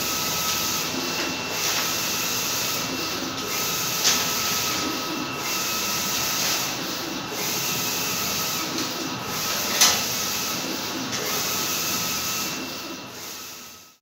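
Large-format sublimation inkjet printer running, its steady mechanical hiss and faint whine swelling and fading in a regular cycle every second or two as the print carriage shuttles back and forth. Two short sharp clicks sound about four and ten seconds in.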